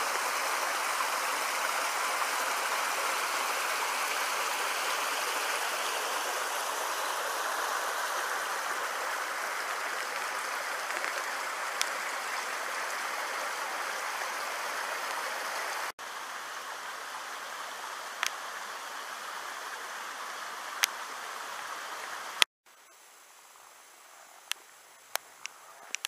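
Small woodland waterfall splashing steadily into a rocky pool. About two-thirds of the way through it cuts to a quieter steady rush, and near the end to a much quieter background with a few light ticks.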